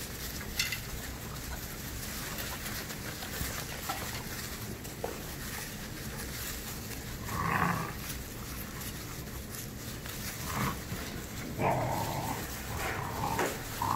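Rottweiler puppies moving about in wood-shavings bedding, giving a few short whines and yips: one about halfway through and several close together near the end.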